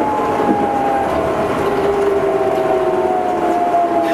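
Astram Line 7000 series rubber-tyred train heard from inside the car: a steady running rumble under the whine of its traction motors. The whine is made of several tones that slide slowly down in pitch as the train slows.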